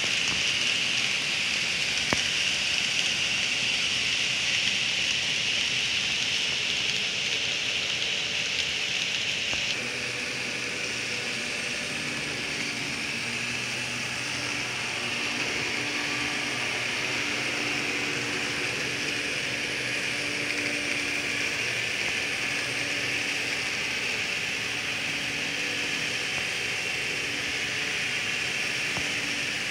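Model freight train with diesel locomotive models running on the layout's track: a steady rolling hiss, joined by a faint, wavering motor hum from about twelve seconds in.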